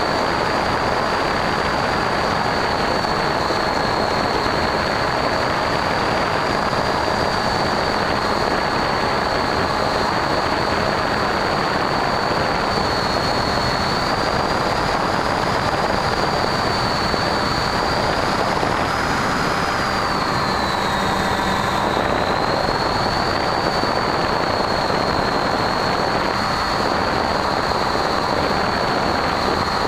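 Electric motor and pusher propeller of a Bixler foam model plane running in flight, heard through the onboard camera's microphone: a steady high whine over a rush of propeller and wind noise. The whine's pitch dips briefly and recovers about two-thirds of the way through.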